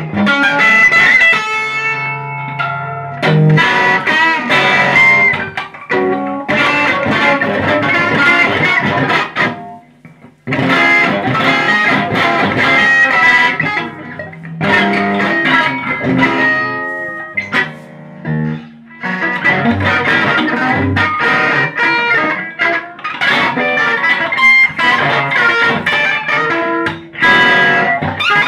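Amplified electric guitar played in free improvisation: dense bursts of strummed and picked notes lasting a few seconds each, broken by short pauses, with one near-silent gap about ten seconds in.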